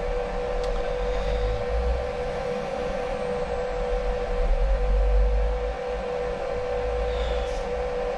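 Turret milling machine running with a boring head in the spindle: a steady whine with a low rumble beneath that swells twice.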